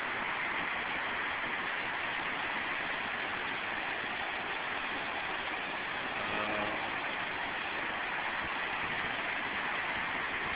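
Floodwater from an overflowing brook rushing over a road, a steady even rush of water. A faint, brief hum rises over it about six and a half seconds in.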